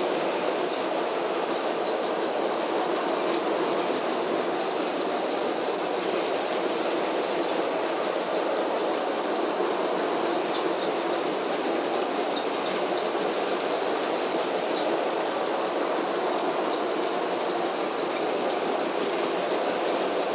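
A Lego toy train running steadily around a circle of plastic track: a small electric motor and the wheels on the rails make one even, unbroken noise.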